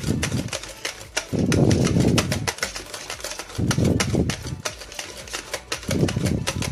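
Wire whisk beating yogurt and water into frothy ayran in a plastic bucket: rapid, continuous clicking of the wires against the bucket, with four louder, deeper bursts of churning.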